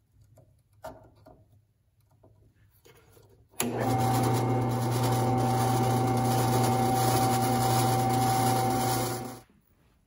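Bench drill press motor switched on about a third of the way in, running with a steady low hum and a steady whine while drilling pin holes through a taped stack of knife parts, then switched off shortly before the end. A few light clicks of handling the work come before it.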